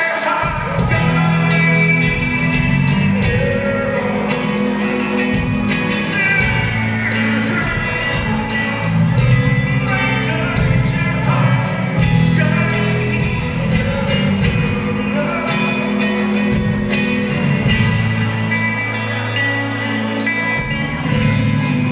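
Live band playing a song with a sung vocal over electric guitars, bass and drums.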